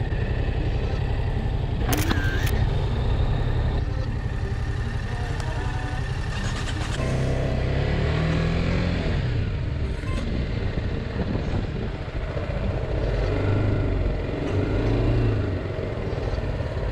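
Motorcycle engine running as the bike pulls away and rides off, its pitch rising as it revs up about seven seconds in and again near the end. A sharp click about two seconds in.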